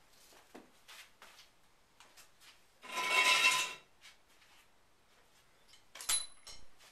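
Metal hand tools and parts clinking and clattering: scattered light clicks, a clattering metallic rattle about a second long near the middle, and a sharp clink with a short ringing tone near the end.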